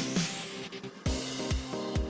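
Background electronic music with a steady beat and a rising sweep that breaks off about a second in.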